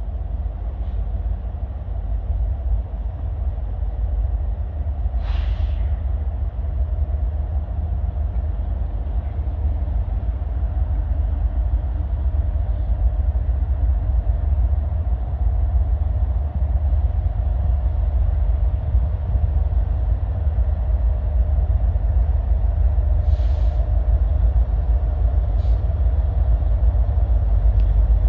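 Approaching diesel freight train, its EMD SD70ACe lead locomotive a deep steady rumble that slowly grows louder as it nears. A couple of short hisses come and go along the way.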